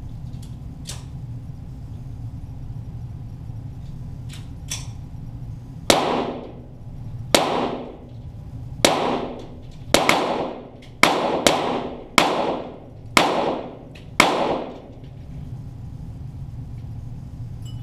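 Nine .22 rimfire shots from Walther GSP target pistols, fired at uneven intervals over about eight seconds. Each crack is followed by a fading echo off the range walls.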